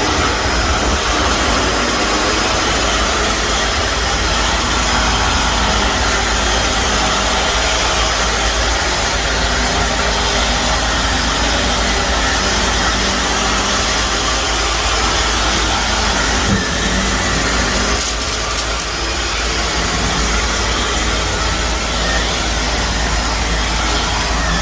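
Shark vacuum cleaner running steadily over a carpet packed with dry soil and debris, its motor and airflow a constant loud hiss and rumble, with a few brief clicks of grit being sucked up about two-thirds of the way in.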